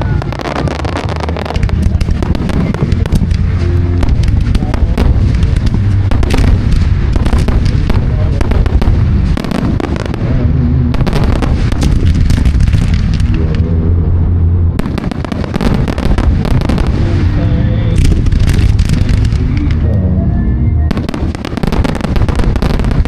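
Fireworks display going off in dense volleys of bangs and crackles, with a few brief lulls, over loud music.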